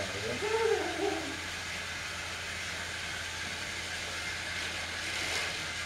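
Battery-powered Fisher-Price TrackMaster toy engines running steadily around plastic track. A short voice-like sound comes in the first second.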